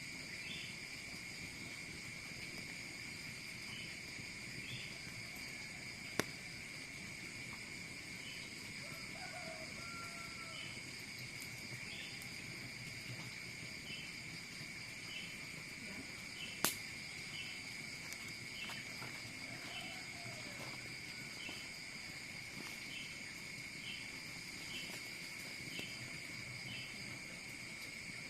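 A steady chorus of insects, with a continuous high buzz and short chirps repeating about once a second. Two sharp snaps break in, about a third of the way through and past the middle.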